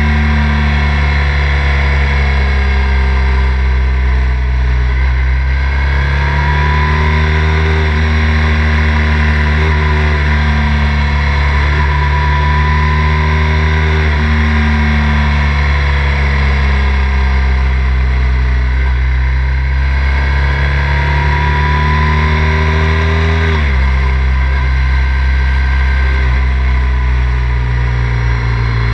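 Triumph Thruxton 900's air-cooled parallel-twin engine running under way, its pitch rising and falling several times as the throttle is opened and eased, with a sudden drop in pitch about three-quarters of the way through.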